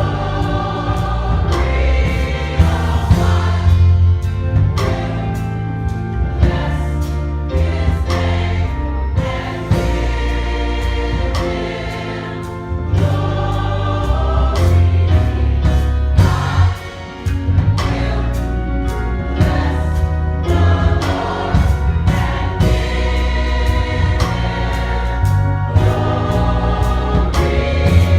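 Gospel choir singing in parts with instrumental accompaniment: a heavy bass line and a steady beat.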